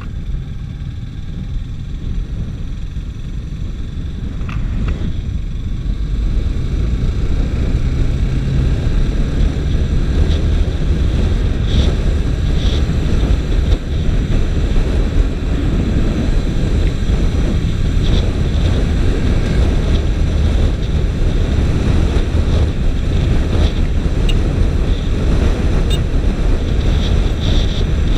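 Wind rushing over the microphone of a camera on a moving motorcycle, with a low rumble from the bike and road underneath. It grows over the first several seconds as the bike picks up speed, then holds steady at road speed.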